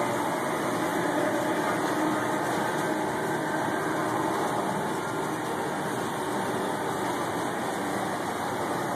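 Steady running hum of a G scale model train on an overhead track, mixed with the even background noise of a supermarket.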